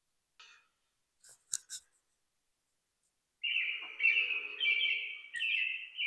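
A few faint clicks, then a bird singing a continuous, warbling song in connected phrases from a little past halfway.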